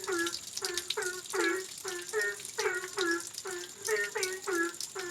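Steady rain hiss with a rapid, regular series of short pitched animal calls, about two to three a second, each dipping in pitch. A faint steady high tone runs underneath.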